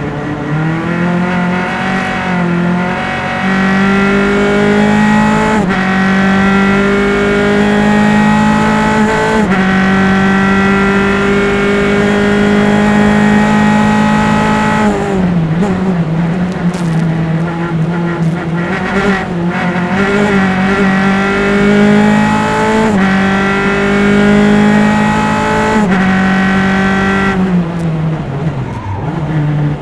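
A single-seater race car's engine at race pace, heard from onboard. It climbs in pitch through the gears with sharp upshifts about 6 and 10 seconds in. It drops and downshifts around the middle and again near the end, as for braking into corners, then pulls up in pitch again at the end.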